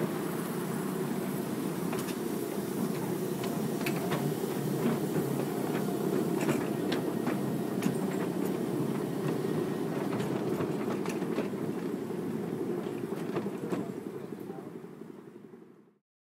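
Ride-on miniature railway carriages running along the track, heard from a seat on the train: a steady rumble of the wheels with scattered sharp clicks and knocks. The sound fades out near the end.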